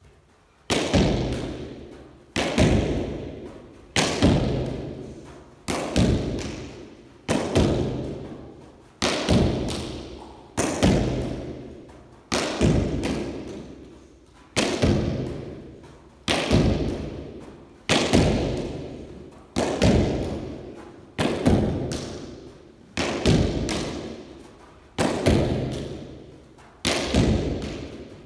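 Hurley striking a sliotar against the wall of an indoor handball alley, over and over: each stroke is a crack of ash on leather with the ball smacking the wall a split second later, then a long echo dying away. About sixteen strikes, one every second and a half or so, at a steady rally rhythm.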